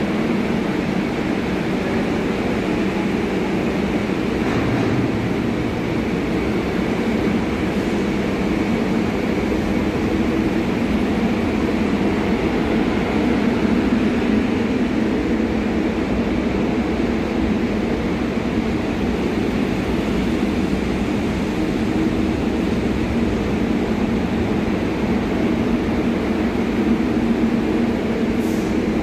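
Subway train pulling out of a station and running past along the platform: steady noise of the wheels on the rails and the traction motors, its cars sliding by one after another.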